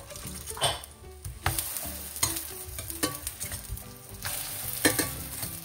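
Sourdough pancakes frying in a pan, the sizzle swelling twice, with a few sharp clicks and scrapes of a utensil.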